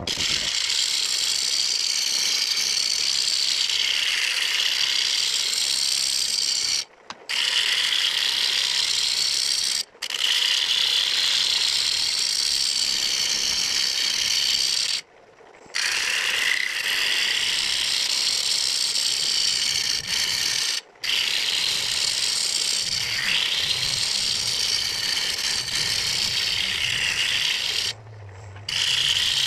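A turning tool cutting the outside of a spinning blue pine bowl blank on a wood lathe, a steady hissing scrape as shavings come off. It breaks off briefly about five times where the tool is lifted from the wood.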